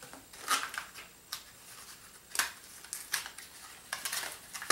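Plastic blister packaging being pried and pulled away from its cardboard backing, giving irregular crackles and sharp snaps about once a second.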